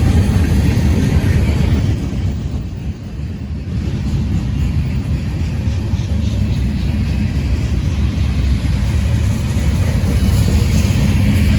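A passing train's steady low rumble, easing briefly about two to three seconds in and then building again.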